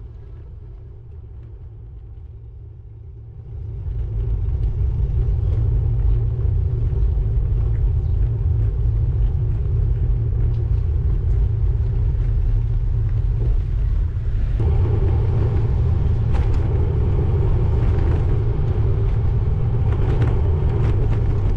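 Wind rumbling over a GoPro's microphone on a moving road bike, jumping louder about four seconds in. A brighter rushing noise joins about fifteen seconds in.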